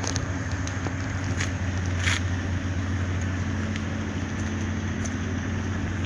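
Steady low drone of a ship's engine, with a couple of faint clicks about one and a half and two seconds in.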